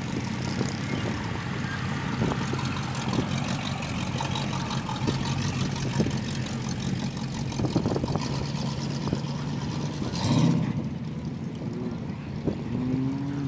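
Vintage Ford Model A coupe's four-cylinder engine running steadily as the car drives past, a low, even engine note over a constant rushing background. A brief louder rush comes about ten seconds in.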